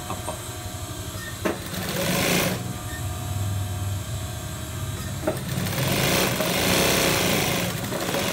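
Industrial lockstitch sewing machine stitching cloth in two runs, one about a second and a half in and a longer one from about six seconds in, each starting with a click. A steady motor hum continues between the runs.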